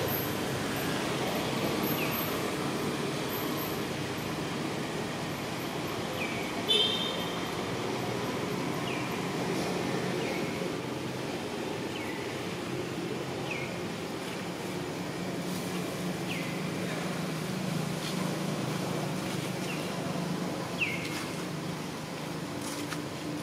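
Steady low rumble of outdoor background noise, with a short, high chirp that falls in pitch repeating every second or two and one louder call about seven seconds in.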